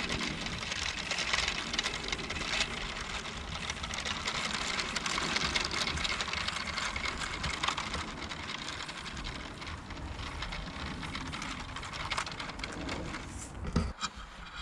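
Steady whirring of a Lego train's small electric motor as the train travels along a rope, mixed with wind rumbling on the microphone; the sound drops away near the end.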